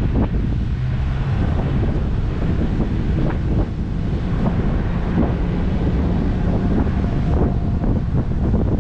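Wind buffeting the microphone of a camera on a moving car, in gusts over a steady rumble of road noise.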